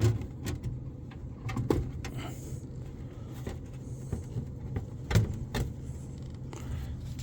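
Plastic knocks and clicks as a new Aprilaire humidifier steam canister is handled and set down into its housing: a few sharp knocks, the loudest about five seconds in, over a steady low hum.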